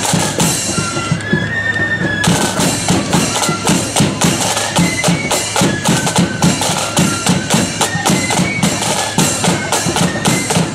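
Loyalist marching flute band playing a tune: shrill flutes carry the melody over loud, rapid side-drum and bass-drum beating. The drumming thins briefly near the start, then comes back in hard about two seconds in.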